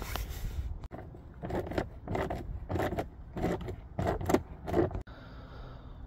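Socket wrench and small metal screws clicking and scraping as the two 7mm screws at the bottom of a car door panel are backed out: a string of short clinks and scrapes, about two a second, through the middle stretch.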